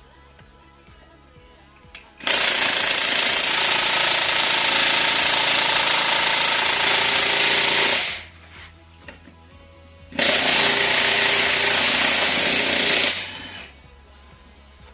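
Impact wrench hammering in two long bursts, the first about six seconds and the second about three, with a pause between them.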